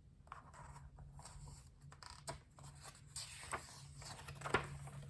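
Faint rustling and scraping handling noise with a few light, sharp clicks, over a steady low hum.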